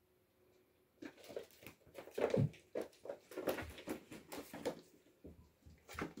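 Kittens scampering and scuffling on a wooden floor: an irregular run of light patters, scratches and thumps that starts about a second in.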